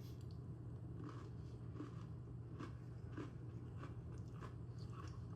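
A person chewing a bite of Oreo sandwich cookie with the mouth close to the microphone: faint, irregular small crunches and mouth clicks, over a steady low hum.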